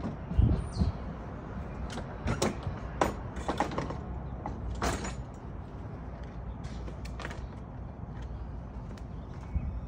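Tools and metal motorcycle parts being handled: irregular sharp knocks and clanks, about a dozen, over a steady low rumble.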